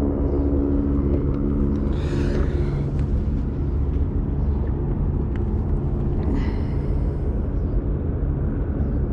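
A steady low engine hum over a continuous rumble.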